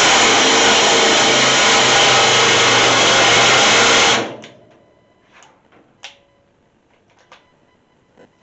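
A motor running steadily and loudly, cutting off suddenly about four seconds in, followed by a few faint clicks.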